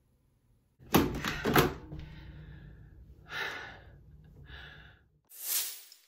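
A few sharp knocks about a second in, like a phone being handled, then short breathy gasps or exhales from a woman and a final breathy hiss near the end.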